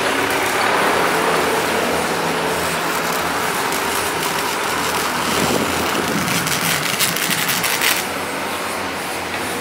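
An engine running steadily, with a quick run of clicks and rattles about seven seconds in.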